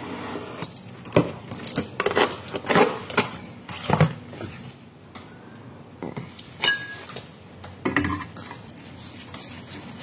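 Metal tools and brake parts clinking and knocking: a run of sharp clanks in the first four seconds, then two more about six and a half and eight seconds in.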